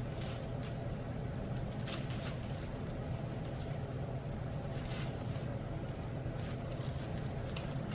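Steady low room hum, with a few faint, short scratchy rustles from a golden retriever puppy nibbling and shifting in a plush dog bed.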